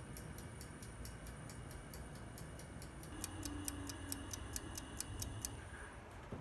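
Rapid, even mechanical ticking, about four to five ticks a second, with a faint steady high tone under it. The ticking grows louder about three seconds in and stops shortly before the end.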